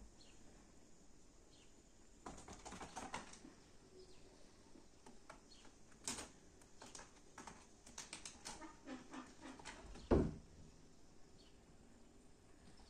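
Kittens' claws scratching and scrabbling on rolled-up woven carpets, in irregular bursts of faint crackling clicks, with one dull thump about ten seconds in.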